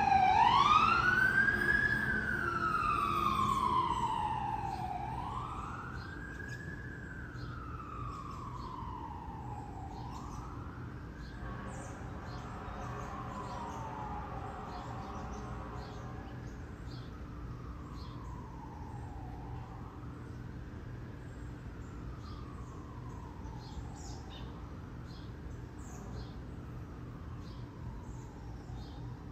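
An emergency vehicle's siren wailing, a slow rise and fall repeating about every four and a half seconds. It is loud at first, fades over the first few seconds, then carries on faintly.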